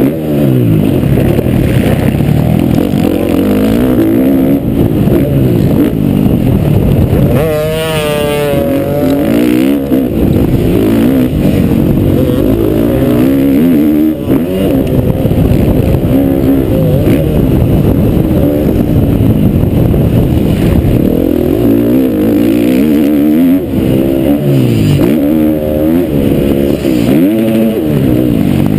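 Motocross bike engine heard on board at race pace, loud throughout, its pitch climbing and dropping again and again as the rider revs up and backs off through the track sections.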